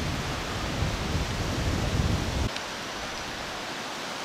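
Wind buffeting the microphone: a gusting low rumble over a steady hiss, the rumble cutting off suddenly about two and a half seconds in and leaving only the hiss.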